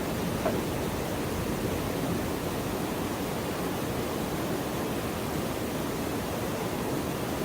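Waterfall rushing steadily, a constant even roar of falling water, with one brief tap about half a second in.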